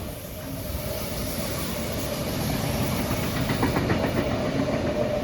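Electric suburban passenger train running along the rails, a steady rumble and hiss of wheels and motors with a steady hum, growing gradually louder.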